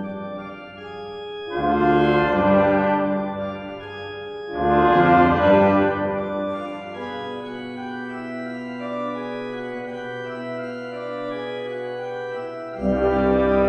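Church organ and brass ensemble with trumpets and tuba playing festive chords. Two strong chord entries come in the first five seconds, then a quieter chord is held for about six seconds, and the full ensemble comes back in with a deep bass near the end.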